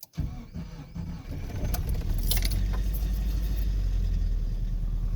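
Nissan D21 pickup engine catching and running unevenly, then settling about two seconds in into a steady low idle. It has a blown head gasket between cylinders 2 and 3 and is running on its remaining cylinders.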